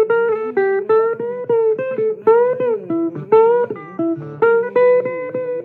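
Blues guitar playing a run of picked single notes, several of them bent up and back down in pitch.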